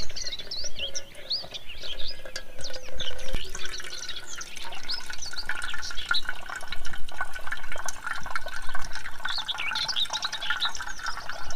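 Water running and splashing, with many small birds chirping throughout.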